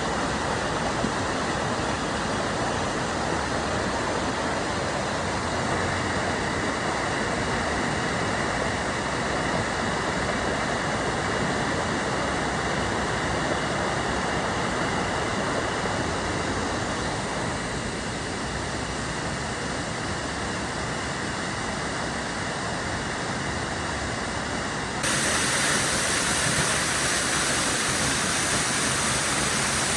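Waterfall: a steady rush of falling water. About 25 seconds in, the sound abruptly turns brighter and a little louder.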